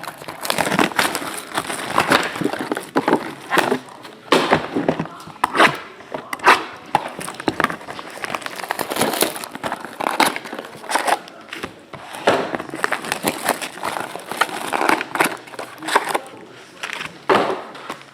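Plastic shrink-wrap crinkling and tearing and cardboard rustling in irregular bursts as a sealed box of trading cards is unwrapped and opened by hand.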